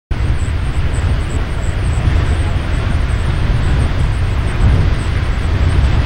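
Beehive Geyser erupting: its water jet gives a steady rushing noise, under a heavy, unevenly pulsing low rumble of wind buffeting the microphone.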